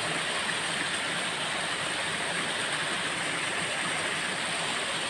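Water rushing steadily over a small waterfall, an even unbroken hiss.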